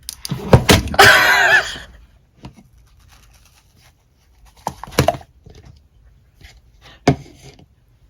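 Slime being handled by hand: a couple of sharp squelching presses near the start, a longer wet squish about a second in, then a few scattered clicky pokes and pops.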